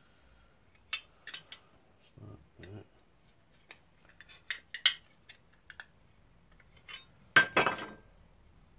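Sheet metal and hand tools being handled at a workbench: scattered sharp metallic clicks and clinks, two soft thuds, and a louder clattering rattle about seven and a half seconds in.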